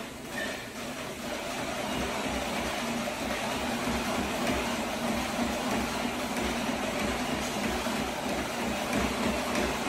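ATG Backward Treadmill's manually driven belt and rollers running under hard pushing strides, with a steady whir and rhythmic low thuds of footfalls on the deck. It gets louder about two seconds in as the pace picks up.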